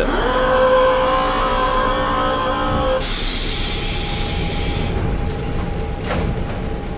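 Air compressor of a former Eidan Marunouchi Line 500-series subway car running with a steady whine. It cuts off about three seconds in as a loud hiss of released air starts and lasts about two seconds. A single clunk comes near the end.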